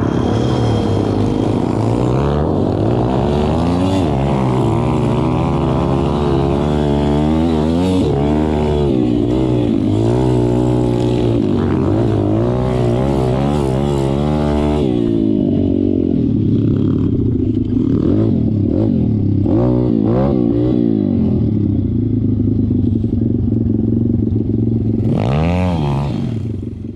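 M2R pit bike's engine heard from on board, revving up and down over and over as it is ridden over rough ground, with clattering from the bike. Near the end it revs up once more.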